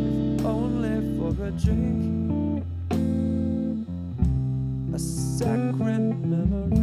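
Background music: an instrumental stretch of a guitar-led song, with plucked guitar and bass.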